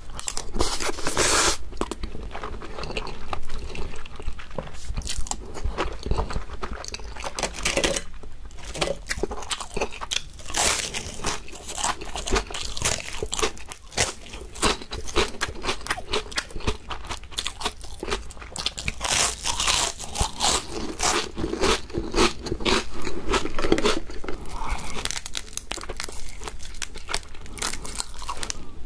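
Close-miked crunching and chewing of gim bugak, crisp fried laver-seaweed chips, eaten with mouthfuls of rice and soy-sauce marinated crab; dense crackling bites run throughout.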